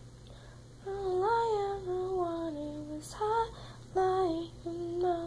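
A woman singing a wordless tune to herself in short phrases of held notes. The first and longest phrase steps down in pitch, and brief notes follow.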